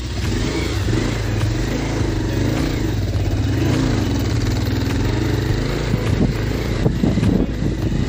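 Bajaj Pulsar 220F's single-cylinder engine pulling the bike up a rough stony dirt track, its revs rising and falling, with irregular knocks and rattles over the last couple of seconds.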